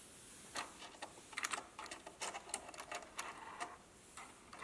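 Small plastic toy construction vehicles being pushed along and handled, giving light, irregular plastic clicks and rattles in short clusters.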